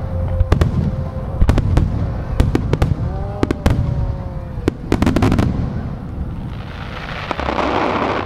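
Aerial fireworks shells bursting in rapid succession: many sharp bangs over a continuous low rumble, with a steady hiss taking over near the end.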